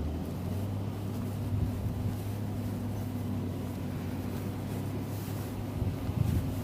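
Large diesel engine of farm machinery working in maize chopping, running steadily at high revs with a deep, even hum.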